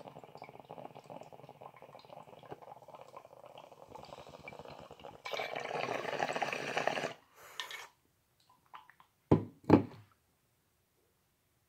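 Water bubbling in a glass bong as smoke is drawn through it, louder for about two seconds just past the middle. Two short loud sounds follow near the end.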